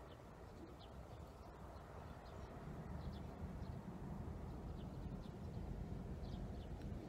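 Outdoor lakeside ambience: a low rumble of wind on the microphone, a little louder a few seconds in, with faint, scattered bird chirps.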